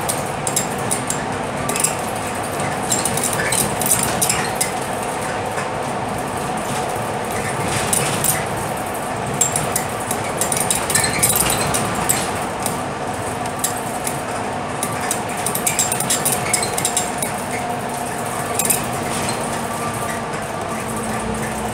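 Inside a Scania K320UB city bus on the move: steady engine and road noise, with frequent light rattles and clinks throughout.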